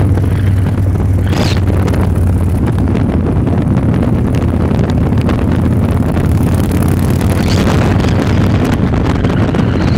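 Victory Highball's V-twin engine running at a steady cruise, half buried under heavy wind buffeting on a handheld phone's microphone, with a couple of brief stronger gusts.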